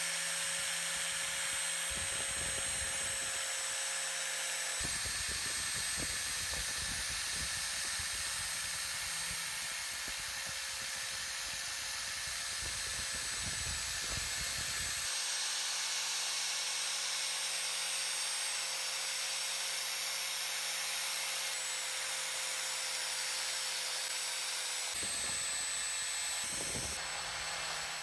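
Power grinder running steadily with a constant whine, its spinning abrasive wheel grinding rust off the steel jaws of old metal snips. The rough contact sound comes in stretches: briefly about two seconds in, steadily from about five to fifteen seconds, and again near the end, with the motor whining alone in between.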